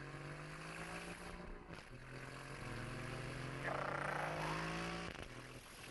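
Aston Martin V8 Vantage's 4.0-litre twin-turbo V8, AMG-built and given an Aston growl, running under throttle as heard from inside the cabin; the note climbs a little in pitch and lets off about five seconds in. A short laugh from the driver comes about four seconds in.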